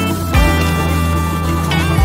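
Background music: sustained chords over deep bass hits.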